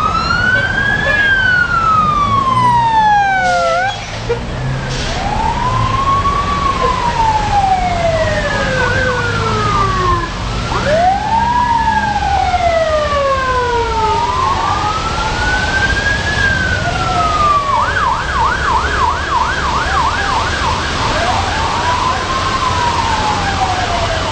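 Emergency vehicle siren wailing, its pitch rising and falling slowly every few seconds. It switches to a fast yelp for a couple of seconds past the middle. A second siren overlaps during the first few seconds.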